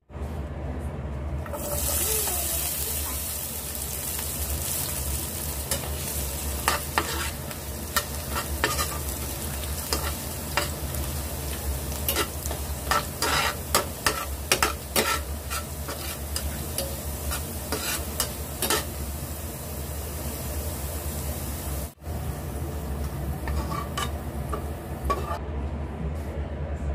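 Diced potato frying in hot oil in a pan, sizzling steadily, over a low steady hum. Through the middle stretch a metal spatula scrapes and clicks against the pan as the pieces are stirred.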